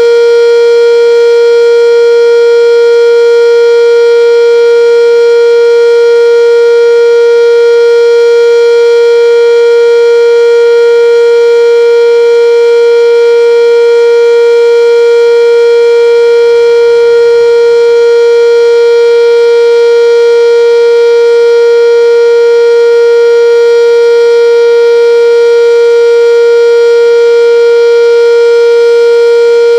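Sentry 10V outdoor warning siren sounding a full alert: one loud, steady tone held at a constant pitch, rich in overtones, with no rise or fall.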